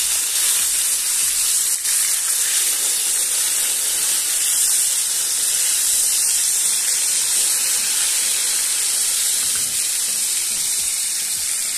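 Flour-dredged fish frying in hot oil in a pan: a steady sizzle.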